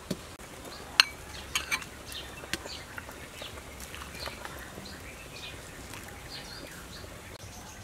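A metal ladle clinking against a ceramic bowl and the soup pot as fish soup is ladled out, a few sharp clinks in the first few seconds. Faint bird chirps sound in the background.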